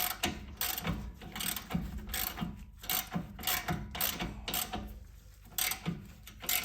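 Hand ratchet wrench clicking in short runs, with occasional clinks of metal tools, as a fastener on the front suspension is worked.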